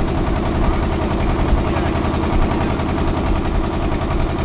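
Fast-flowing Beki river floodwater, a loud, steady rushing roar.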